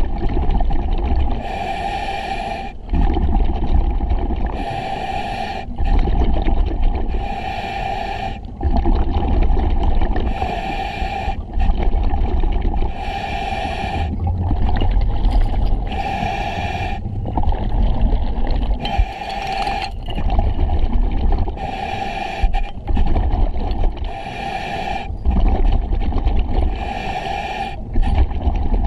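Scuba diver breathing through a full-face mask's demand regulator. A hissing inhale comes about every two and a half to three seconds, each followed by exhaled bubbles rumbling out.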